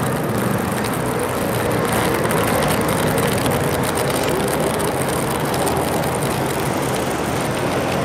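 Many ping-pong balls bouncing on stone steps, an irregular patter of light clicks, over a steady rumble of city traffic.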